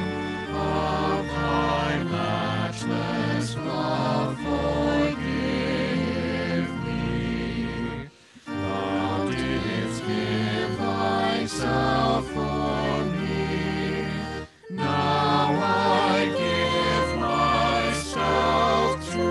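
A small vocal group of two men and two women singing together at microphones, in three phrases separated by two brief pauses.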